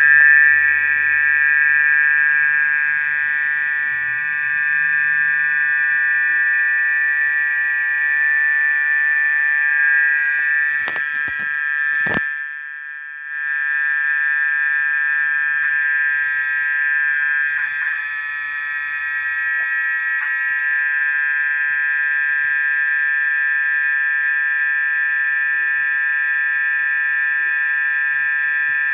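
A steady, high-pitched drone made of several close tones sounding together, like an alarm or buzzer, presented as a mysterious sound recorded after an earthquake. A few sharp clicks and a brief drop in the drone come about twelve seconds in.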